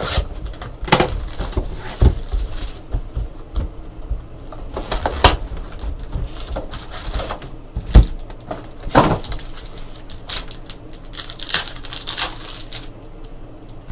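A sealed trading-card box and its card packs being torn open and handled, with irregular crinkling, ripping and tapping. A sharp thump about eight seconds in.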